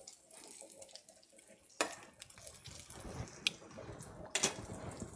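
Diced guanciale sizzling gently in a pan as its fat slowly renders out, with a few sharp clicks about two seconds in and near the end.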